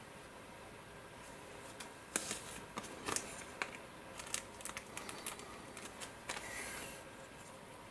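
Small clear plastic zip-lock bags of model-kit parts crinkling and tapping as they are handled and set down in a cardboard tray. Scattered light clicks and short rustles start about two seconds in, with a longer rustle near the end.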